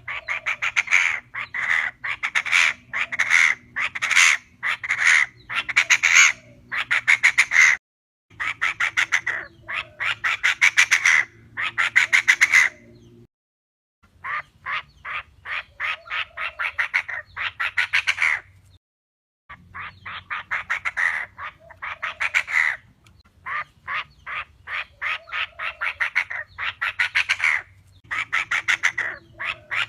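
Female Chinese francolin calling: rapid runs of sharp, repeated notes in phrases a few seconds long, with short breaks between phrases. It is a recorded lure call used to draw francolins to traps.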